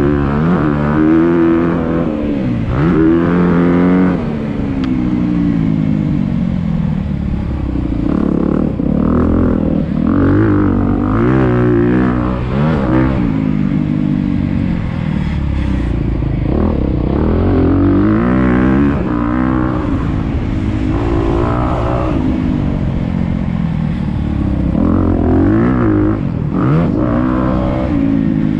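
2022 Honda CRF250R's single-cylinder four-stroke engine at full race use, revving up and dropping back over and over as the bike accelerates, slows and accelerates again around the dirt track.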